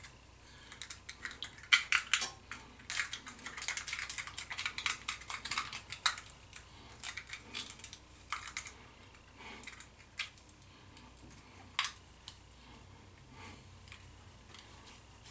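Scratchy clicks and rubbing of small objects being handled close by, dense for the first nine seconds or so, then thinning out to occasional clicks, with one sharp clack about twelve seconds in.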